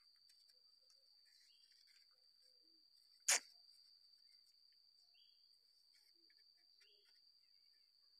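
A steady high-pitched insect trill, typical of a cricket, runs unbroken, with a single sharp click a little over three seconds in.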